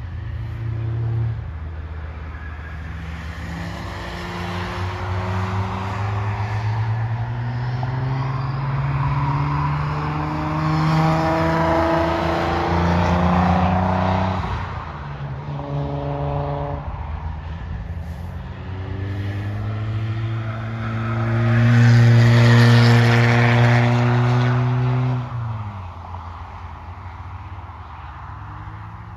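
Nissan 300ZX Twin Turbo's twin-turbo V6 accelerating hard on track. Its pitch climbs for several seconds, drops suddenly at a gear change or lift about halfway through, then climbs again. It is loudest a few seconds later and falls away sharply near the end as the driver lifts off.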